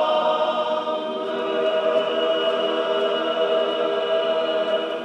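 Choir singing a slow sacred chant in long held chords, dying away at the end.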